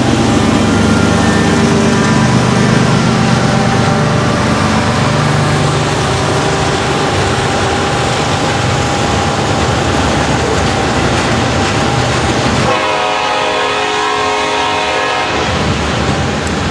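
Train with diesel locomotives going by, a steady rumble of engines and wheels on rail. About thirteen seconds in, a tone with several pitches sounds for about two and a half seconds.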